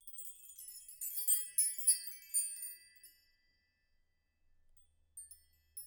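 High, bright chiming tones, struck about five times in quick succession and ringing out, fade away after about three seconds; a few faint high tinkles follow near the end.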